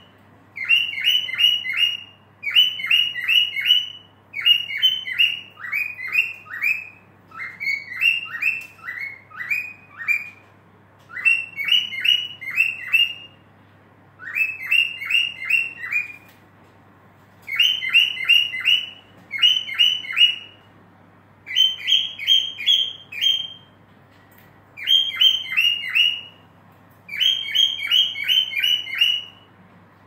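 Cockatiel whistling a repeated song: quick runs of three to six short, falling notes, one run every second or two, with a few brief pauses between runs.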